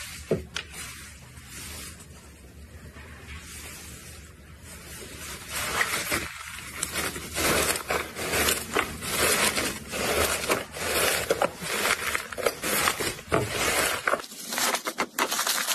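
Hands squeezing and folding orange slime. It is soft and quiet at first, then from about six seconds in comes a dense, wet crackling with many small pops.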